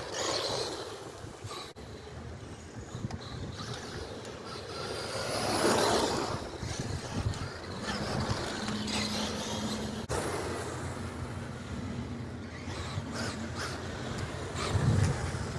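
Traxxas Bandit VXL RC car driving, its Velineon brushless motor and drivetrain running and its tyres rolling over the ground, getting louder as it speeds up about six seconds in and again near the end.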